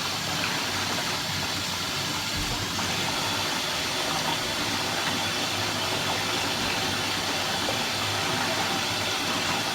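Bathtub tap running steadily, water pouring into the tub with a continuous hiss.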